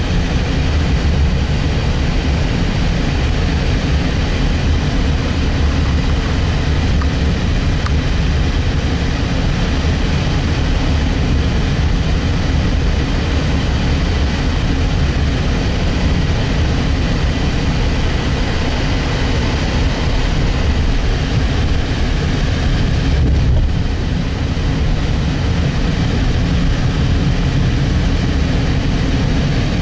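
A car driving along a road, heard from inside: a steady, loud rumble of engine and tyre noise.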